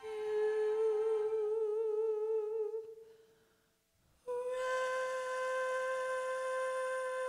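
Closing music: a long wordless held note with vibrato fades out about three seconds in. After a moment of near silence, a new steady held note with a breathy edge starts and sustains.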